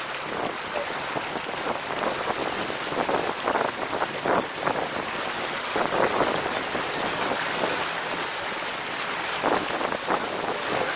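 Motorboat under way: wind buffets the microphone and water rushes and splashes along the hull and wake, a steady rushing noise with irregular gusts.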